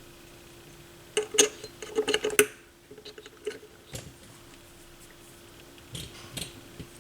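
Small hard parts being handled, clicking and clattering in a quick cluster of knocks starting about a second in, then a few lighter scattered clicks, over a faint steady hum.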